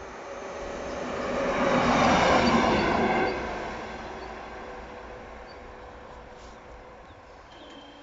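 A diesel locomotive running light along the track, with engine and wheel noise swelling as it approaches and passes. It is loudest about two to three seconds in, then drops away and fades. A steady high tone starts near the end.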